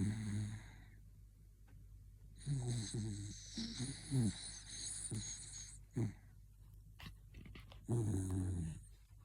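Bichon Frise dog snoring: a series of rasping, rattling snores with a hissy breath, one right at the start, a long one with several strokes from about 2.5 to 6 seconds, a short one at six seconds, and another near the end.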